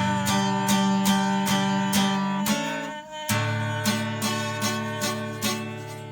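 Acoustic guitar strummed in a steady rhythm, about two and a half strums a second, changing chord about halfway and fading out near the end as the song closes.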